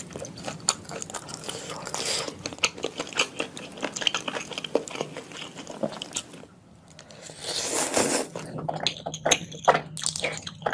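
Close-miked mukbang eating of noodles in red sauce: wet chewing and lip smacking, dense and clicky. After a short lull, a louder slurp of noodles comes just past the middle.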